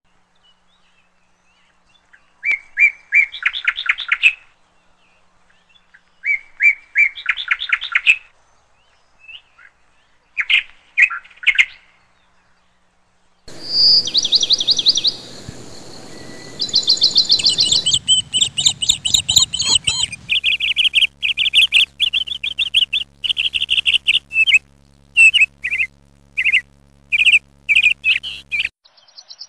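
Small birds chirping in quick trilled bursts: three short bursts in the first half, then near-continuous chirping from about halfway, with a steady low hum underneath in the last third.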